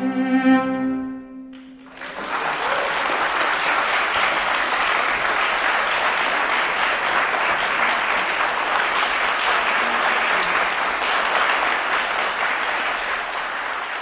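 A cello and grand piano end on a held final chord that dies away about a second and a half in. The audience then breaks into steady applause.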